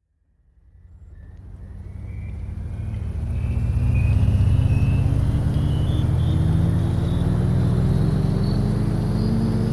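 An engine fading in over the first few seconds, then running with a low hum and a high whine that both climb slowly and steadily in pitch.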